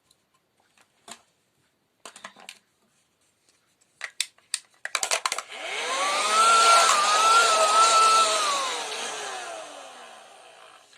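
Small electric pump motor switched on: a few handling clicks, then about five seconds in it spins up with a rising whine, runs briefly, and coasts down with its pitch falling steadily toward the end.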